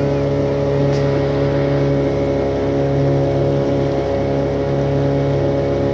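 Motorboat engine running steadily at an even speed, with a brief click about a second in.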